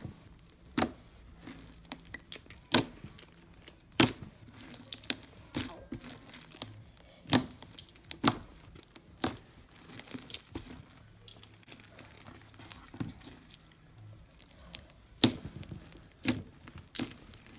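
Homemade glitter slime being squeezed and stretched by hand, giving irregular sharp pops and crackles, roughly one or two a second.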